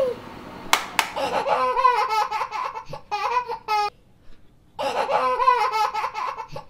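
Child's laughter sound effect, a bouncy giggling phrase that repeats almost identically, with a short pause in the middle. About a second in there are two sharp clicks or snaps in quick succession.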